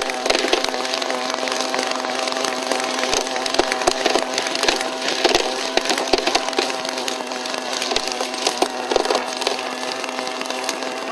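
A crashed RC helicopter's engine keeps running at a steady high speed while the machine lies on its side, with many short clicks and knocks as the spinning rotor head strikes the grass and dirt.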